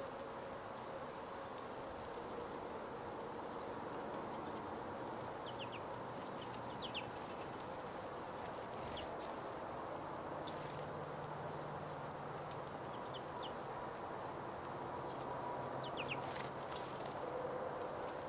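Small finches, pine siskins and American goldfinches at a nyjer seed feeder, giving short high chirps now and then in little clusters. Under them runs a steady low background noise, with a few faint clicks.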